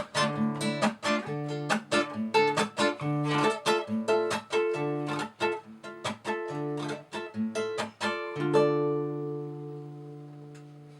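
Acoustic guitar playing the instrumental close of a song with picked notes and chord changes, ending on a final chord about eight and a half seconds in that rings out and fades away.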